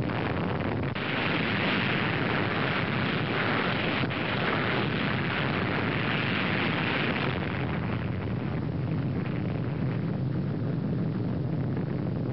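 Underwater nuclear bomb explosion: a loud, continuous rumbling blast that sets in suddenly and keeps going, easing off a little after about eight seconds.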